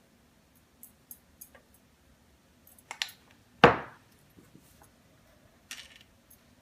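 Light clicks of a spoon against a small cup of Nutella, then one sharp knock on the tabletop about three and a half seconds in, the loudest sound. A brief rustle follows near the end as the wonton wrapper is handled for folding.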